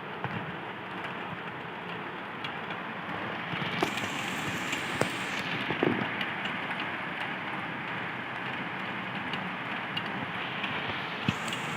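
Heavy rain pouring steadily, with scattered drops clicking sharply on a nearby surface. A brighter, higher hiss swells for about a second and a half about four seconds in, and again near the end.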